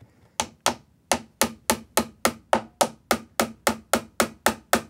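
Small hammer tapping brads into a pine trim strip: a quick, even run of light strikes, about three a second, starting after a short pause.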